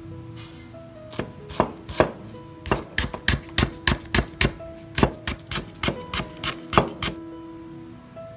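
Knife chopping on a cutting board: about twenty quick, sharp chops, starting about a second in and stopping a second before the end, over soft background music.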